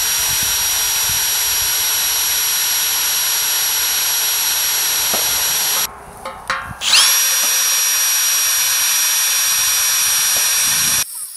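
Cordless drill with a twist bit running at full speed, drilling out a bolt hole in the solar tracker's metal base plate to enlarge it. It stops about six seconds in, spins up again with a rising whine about a second later, and runs until just before the end.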